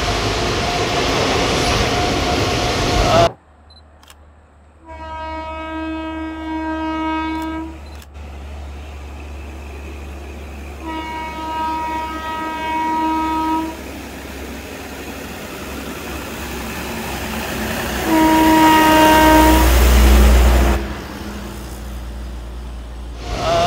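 Indian Railways passenger train running, its loud rush cutting off suddenly about three seconds in. Then the locomotive horn sounds three times on one pitch, two blasts of about two and a half seconds and a shorter last one, over the train's low rumble, which swells loudest just after the third blast.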